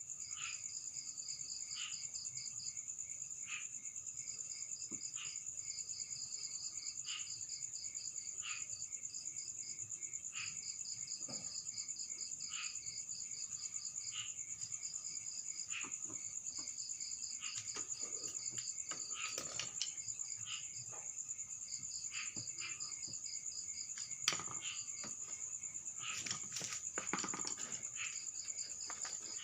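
Insects, likely crickets, trilling and chirping steadily at a high pitch, with scattered taps and knocks from hand work, the sharpest knock about three-quarters of the way through.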